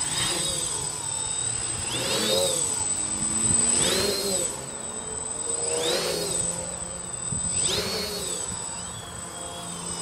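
Quadcopter's motors and propellers whining as it lifts off and flies, the pitch swelling up and falling back about every two seconds as the throttle changes.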